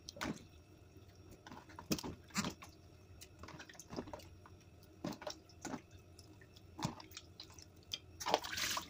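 Wet raw chicken wings being picked out of a tray of water and dropped into a bowl: scattered drips, small splashes and soft squishes, with a longer wet rustle near the end.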